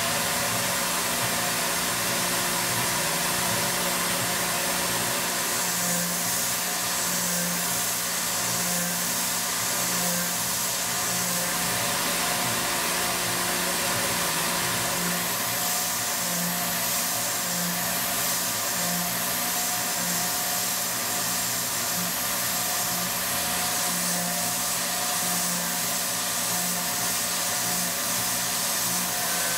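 CNC milling machine running a small end mill through aluminum, with a steady spindle whine and cutting noise under an even hiss from the coolant nozzle. The cutting note swells and eases about once a second as the tool moves through the pocket.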